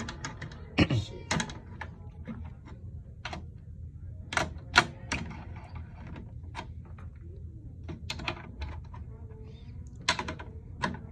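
Scattered clicks and knocks of hands and a drum key working the hardware of a snare drum while its new head is fitted and the tension rods tightened.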